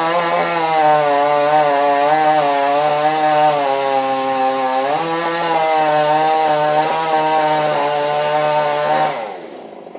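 Chainsaw held at high revs through a cut in a limb, its pitch wavering and dipping under load about four to five seconds in, then falling away as the throttle is released near the end.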